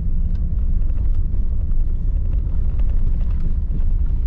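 A car driving on a gravel road, heard from inside the cabin: a steady low rumble of tyres and engine, with small scattered clicks throughout.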